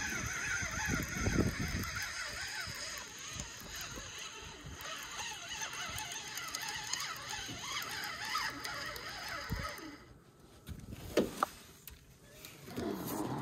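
Spinning reel being cranked to bring in a hooked fish, a steady wavering whir. About eleven seconds in, two sharp knocks.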